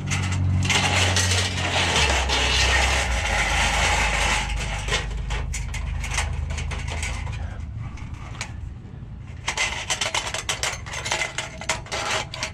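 Scrap copper wire and cable being handled and sorted: a long stretch of rustling and scraping, then a run of sharp clicks and clinks near the end, over a steady low hum.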